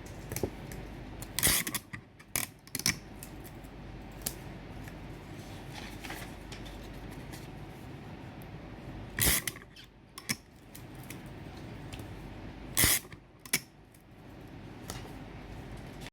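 Scotch tape handled in three short bouts: sharp rips and snaps, a longer tearing sound followed by one or two quick clicks, about a second and a half in, near the middle and near the end. A steady low background noise runs underneath.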